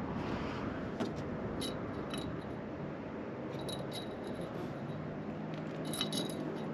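Fishing tackle clicking and clinking: a few short, sharp metallic ticks scattered through, about a second in and again near the end, over a steady background hiss.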